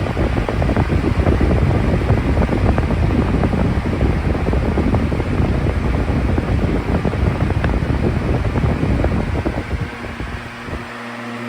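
Vornado Model 80 box fan running on high, its strong airflow buffeting the microphone with a gusty, rumbling wind noise. Near the end the buffeting drops away and leaves a steadier, quieter hum.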